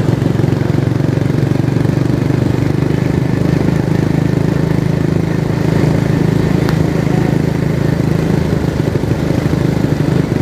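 Steady engine and road noise from a moving vehicle on a city street, a constant low drone with no change in pace.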